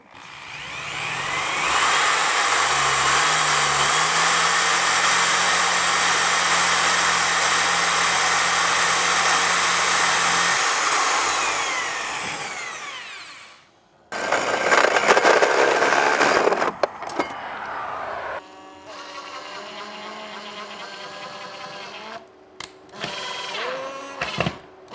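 Corded drill driving a 3.5-inch hole saw through the wall. It spins up over about two seconds, cuts steadily for about ten seconds and then winds down. A second, shorter burst of drilling follows, then quieter, uneven runs of a smaller drill near the end.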